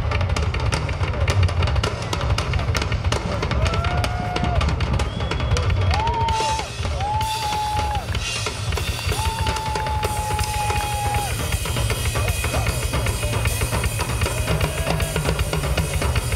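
Live drum solo on a rock drum kit with two bass drums: a fast, dense stream of strokes across drums and cymbals over steady bass drum beats.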